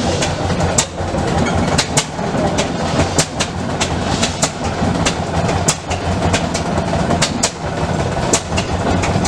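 A machine running with a steady low rumble and frequent, irregular sharp clacks.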